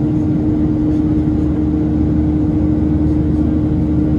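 Boeing 737-800's CFM56-7B turbofan engines heard from inside the cabin during the climb after takeoff: a loud, steady rumble and rush of air with a constant hum.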